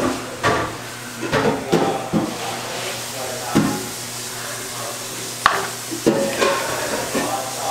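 A metal spoon scraping and clinking in a non-stick frying pan and on a baking tray as filling is scooped out and spread onto pastry, with several sharp knocks at irregular intervals.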